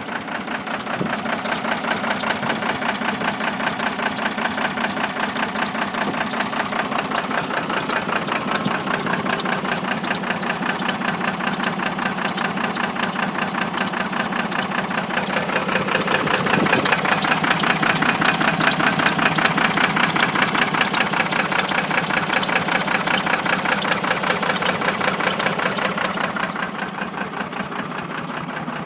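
A 12-valve Cummins 5.9-litre inline-six diesel in a first-generation Dodge truck idling with a steady, fast knock. It gets a little louder about halfway through and eases back near the end. The title puts its misfire down to a blown head gasket.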